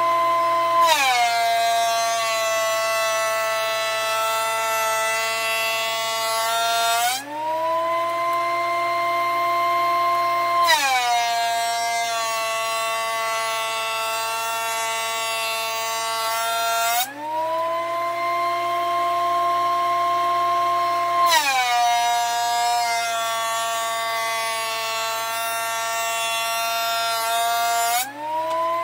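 Benchtop thickness planer running and taking three passes on a laminated zebrawood panel. Each time the board feeds in, the motor's whine drops in pitch and a hiss of cutting joins it. When the board clears, the whine climbs back to its higher no-load pitch.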